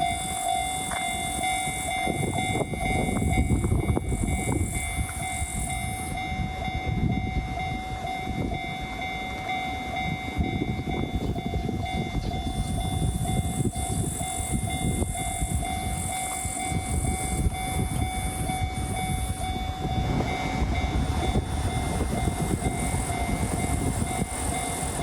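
Freight train passing over a level crossing, a continuous rumble of wagons with clacking over the rail joints. The crossing's warning bell rings throughout.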